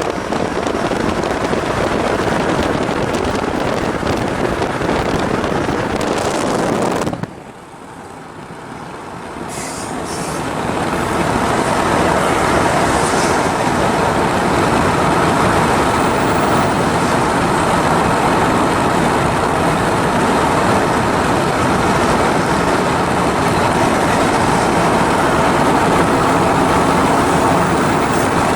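Freight train rolling past, a steady rumble of wheels on rail. It cuts off abruptly about seven seconds in, then builds back up over a few seconds to the same steady running noise.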